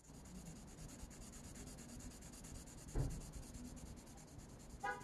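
Pencil shading on paper, a faint steady scratching of the lead, with a single light knock about three seconds in.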